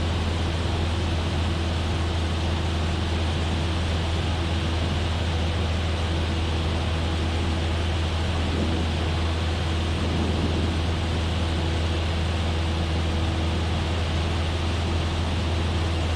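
Cessna 172F's six-cylinder Continental O-300 engine and propeller in cruise flight: a steady, even drone with a strong low hum and no change in power.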